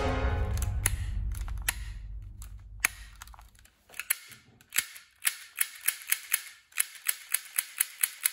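A toy pistol clicking sharply again and again as it is fired, the clicks sparse at first, then coming about three a second. Background music fades out over the first few seconds.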